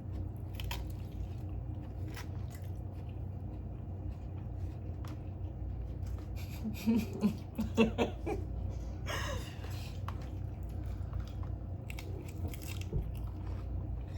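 Close-miked mouth sounds of a person biting and chewing food, with scattered short clicks and crunches over a steady low hum.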